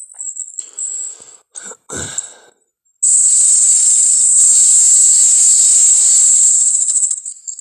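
Made-up Indoraptor dinosaur sound effect: a few short breathy snorts, then a long, loud hiss starting about three seconds in and lasting about four seconds.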